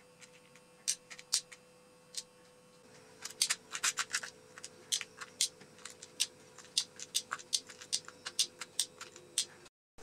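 Small brass lock key pins being picked through and dropped into a plastic compartment organiser box: light metal-on-plastic clicks and rattles, a few spaced ones at first, then a quick busy run from about three seconds in that cuts off suddenly near the end.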